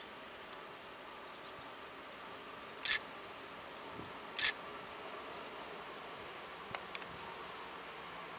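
EP07 electric locomotive with its passenger train approaching slowly, heard as a faint steady hum. Two short loud hisses come about three and four and a half seconds in, and a single sharp click follows near the end.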